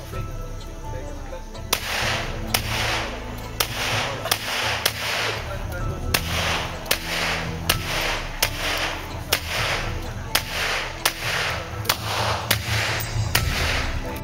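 Glock 17 9mm pistol fired in a steady string of about fifteen shots, a little under a second apart. Each is a sharp crack with a short ringing tail.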